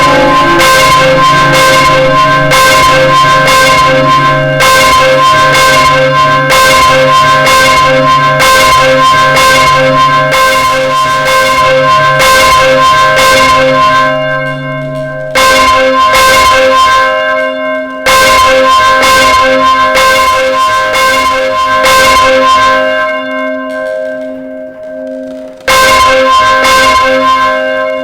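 Church bells ringing, each strike about half a second apart and leaving a long ringing tone. About halfway through the deepest bell falls silent. The remaining strikes then come sparse and uneven, a few loud single strokes with the ringing fading between them, as the peal winds down.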